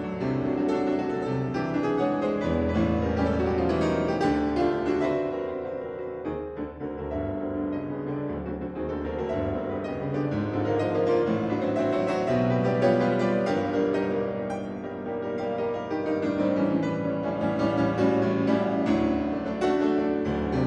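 Solo piano playing classical music in a dense, many-noted texture. It eases to a softer passage about six to eight seconds in, then builds back up and is loudest near the end.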